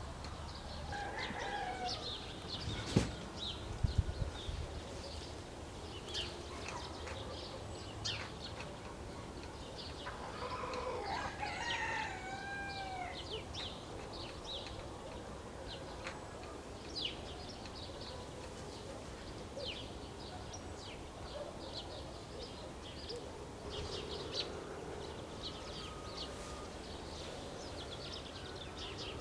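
A rooster crowing about ten seconds in, over steady chirping of small songbirds, with hens clucking. A couple of sharp low thumps sound near the start.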